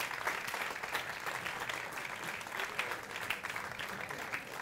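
Audience applauding, many hands clapping at once and slowly dying down.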